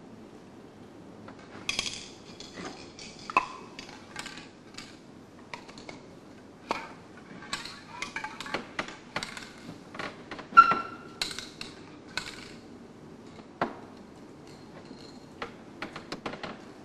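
Irregular light knocks and clinks of small hard objects being handled, some ringing briefly. The loudest clink comes about ten and a half seconds in.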